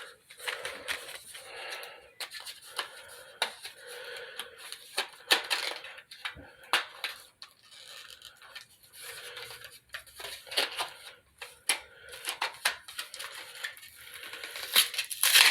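Battery packaging being handled and opened by hand: irregular crinkling, tearing and crackling with many small clicks, and a louder burst of crackling near the end.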